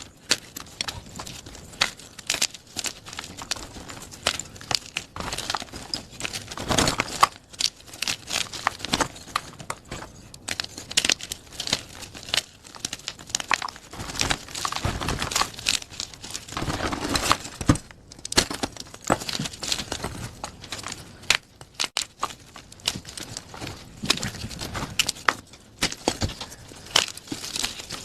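Plain gym chalk being crushed and crumbled: a dense, irregular run of crunches and crackles.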